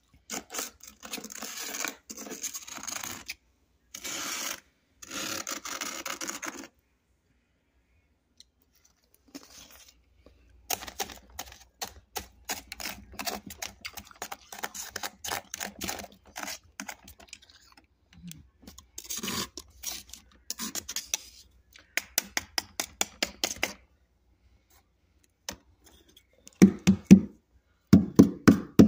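Freezer frost crunched between the teeth close to the microphone, in runs of dense crackling with two short pauses. Heavier, deeper crunches come near the end.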